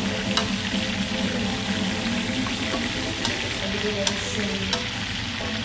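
Chicken pieces browning in hot oil in a stainless steel pan: a steady sizzle with occasional sharp pops and clicks, as metal tongs stir and turn the pieces.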